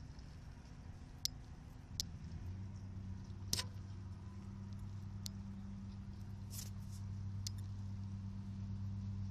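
A few sharp, light metallic clicks and taps at irregular intervals from the rust-spotted exhaust heat shield area under a 2008 Subaru Impreza, over a steady low hum that sets in about two and a half seconds in and slowly grows louder.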